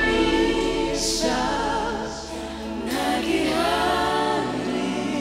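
Gospel vocal group singing live in harmony, male and female voices on slow, wavering held notes. The low band accompaniment under them drops away about two seconds in, leaving the voices nearly alone.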